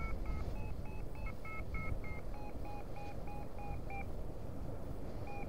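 Paragliding variometer beeping in short, evenly spaced tones, about three a second, the climb tone that signals the glider is in lift. The beeps stop about four seconds in, with one more near the end, over a steady rush of wind on the microphone.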